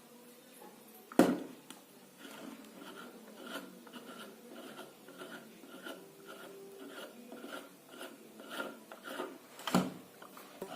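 Rhythmic scraping or rubbing strokes, about two to three a second, typical of hand-working a small piece of material. A sharp knock comes about a second in and another near the end.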